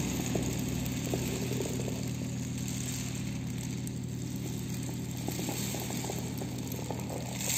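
Mini rain drum, a tube slowly tilted back and forth, giving a soft, irregular trickle of falling pellets. A steady low hum sounds underneath.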